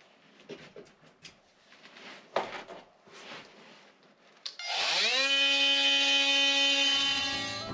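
Scraping and handling noises, then about four and a half seconds in a cordless Makita oscillating multi-tool starts up with a quickly rising whine and runs at a steady buzz against old fiberglass.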